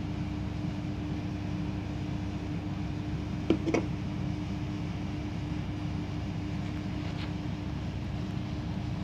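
Microwave oven running with a steady electrical hum, with a few light clicks about three and a half seconds in and a fainter one near seven seconds.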